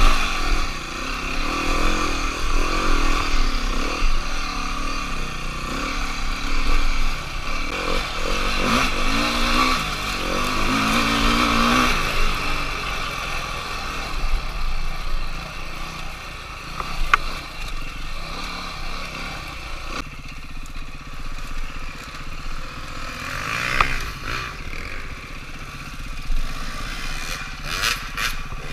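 Dirt bike engine revving up and down through the first dozen seconds, then running lower and steadier in the second half. A few sharp knocks come in the later part.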